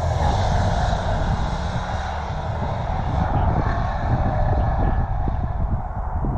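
Exhaust of a 2014 Ram 1500's 5.7 Hemi V8, running long-tube headers with no catalytic converters into the stock muffler and resonators, as the truck drives past. The deep rumble is steady while the higher part of the sound dulls as the truck moves away.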